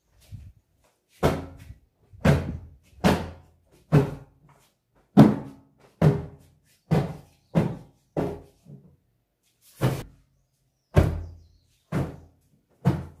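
A cloth slapped down again and again onto upholstered sofa cushions to beat the dust out: a series of dull thumps, roughly one a second at uneven spacing, each dying away quickly.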